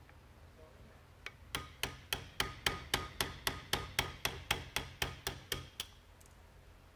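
Hammer tapping a steel pin punch to drive a roll pin out of a rifle stock's butt plug: a steady run of about eighteen sharp metallic taps, about four a second, each with a short ring. The tapping starts a little over a second in and stops near the end.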